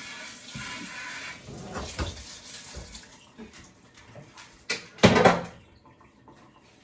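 Kitchen tap running into a sink while part of an air fryer is washed, stopping about a second and a half in. A few knocks follow, then a loud clatter about five seconds in.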